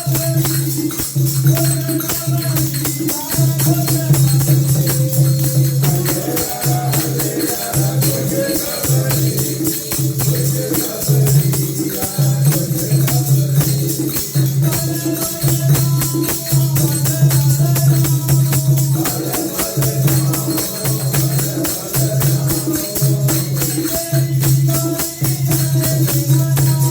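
Sikh devotional kirtan music: a steady drone with a melody moving above it and constant jingling percussion.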